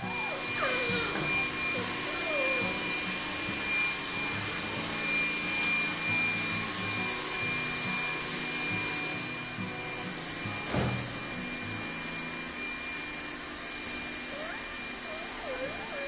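Vacuum cleaner running steadily: a continuous rushing noise with a steady high whine. A single thump sounds about eleven seconds in.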